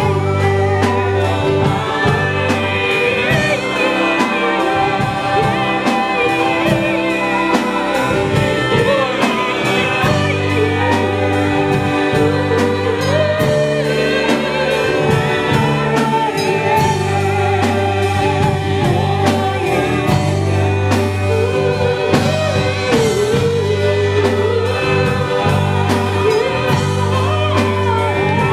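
Christian worship song played by a live band, with singing over held bass notes and band accompaniment, steady throughout.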